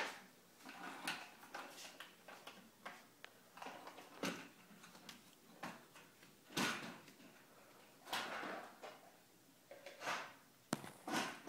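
Footsteps and the handling noise of a handheld phone as it is carried along: a scatter of soft thuds, knocks and swishes at irregular intervals.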